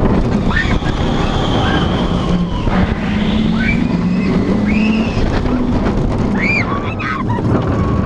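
Wind rushing over the microphone as a roller coaster train runs at speed, with a low steady hum for a few seconds midway. Riders whoop and scream several times, with rising-and-falling cries.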